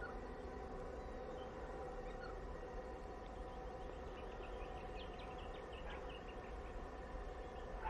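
Faint, steady drone of distant diesel locomotives working along the line, with small birds chirping in a quick series of short calls from about three seconds in until past six.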